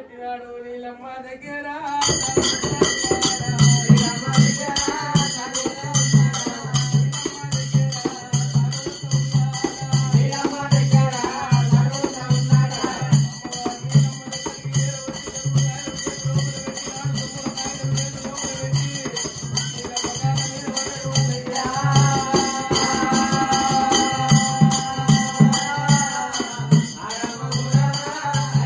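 Telangana folk music of an Oggu katha troupe: a drum beating steadily about every three-quarters of a second under a bright jingling rattle and a held melodic line. It comes in about two seconds in.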